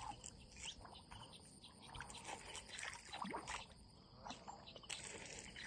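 Light, irregular splashing and sloshing of pond water as Mekong giant catfish take feed at the surface, over a steady high-pitched drone.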